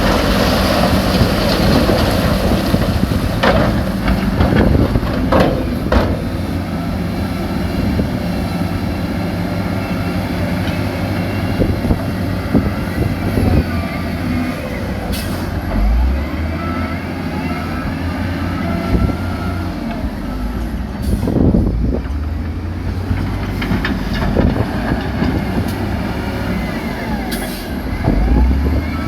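Heavy diesel earthmoving machinery running steadily under load, with a sharp clank or knock now and then: a few close together early on, then single ones spread through the rest.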